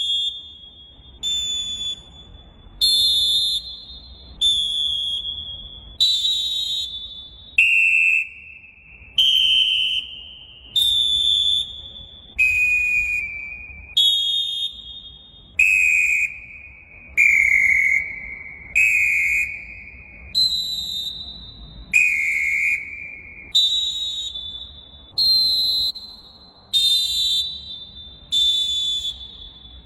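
A run of short, high-pitched horn tones played one after another, a new one about every second and a half, each at a different pitch and each starting sharply and fading.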